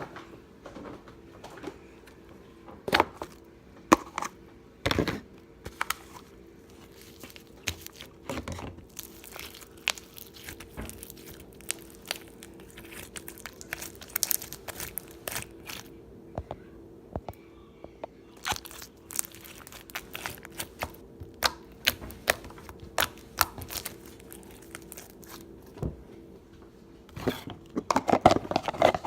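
Slime being worked by hand, giving many short sharp clicks, pops and crinkly crackles at an irregular pace, with a denser burst near the end. A faint steady hum runs underneath.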